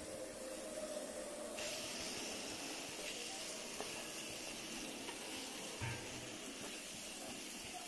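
Tomato and ground-spice masala paste sizzling and frying in oil in a nonstick pan as a wooden spatula stirs and scrapes it. The hiss turns brighter about a second and a half in, and there is a soft thump about six seconds in.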